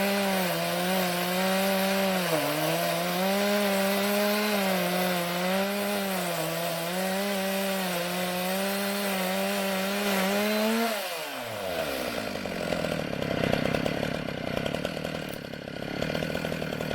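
Two-stroke chainsaw running at high revs while ripping an oak log lengthwise in a chainsaw mill, its pitch wavering slightly under load. About eleven seconds in, the revs fall away sharply and a rougher, lower running sound follows.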